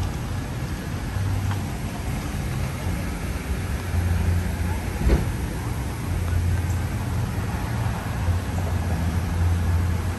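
Road traffic rumble and general city street noise, with a single sharp knock about five seconds in.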